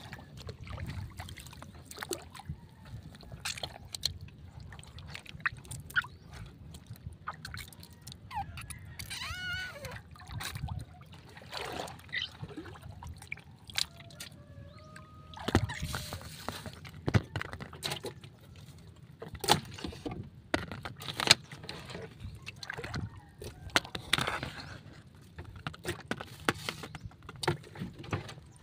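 Water sloshing and lapping around a small wooden boat, with many sharp knocks and clatter against the hull over a steady low rumble.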